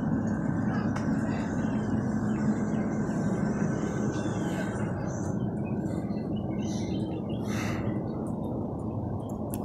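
Steady outdoor background noise with a low hum, easing off about halfway through.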